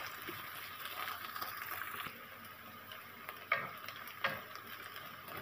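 Chopped pickled radish sizzling in oil in a nonstick pan while a wooden spatula stirs it. The hiss is steady, with small scraping clicks of the spatula against the pan and two louder knocks in the second half.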